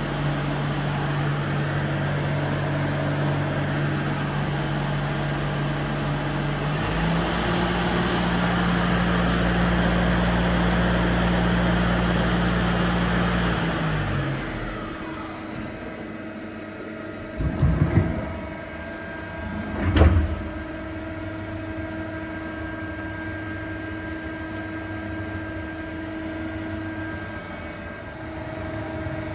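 Mazak SQT CNC lathe running: a steady spindle drone with a hiss steps up in pitch about a quarter of the way in, then winds down to a stop around the middle. Two loud knocks from the machine follow a couple of seconds apart, then a steady quieter machine hum.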